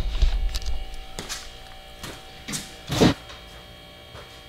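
Electric garage door opener running: a steady motor hum with several sharp clunks, the loudest about three seconds in.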